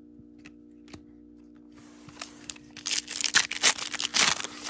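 A foil-wrapped 2021 Donruss baseball card pack being torn open, its wrapper crackling loudly for a couple of seconds from about halfway through, after a few faint handling clicks.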